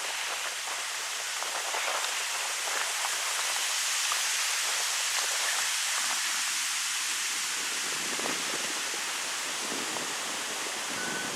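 Wind blowing through birch trees, a steady rushing hiss of leaves that swells slightly midway, with faint scattered leaf rustles.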